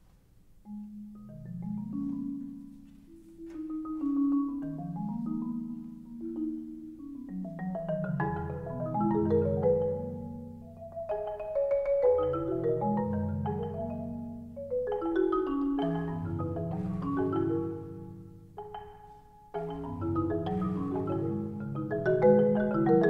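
Marimba trio playing with mallets, entering about a second in: long-held low notes under layered higher melodic notes, the texture swelling and easing in repeated waves.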